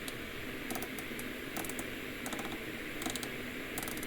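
Light clicking in small clusters about every three-quarters of a second, over a steady hiss: the controls of a Xiegu G90 radio transceiver being worked to step through channels, with the receiver's static behind.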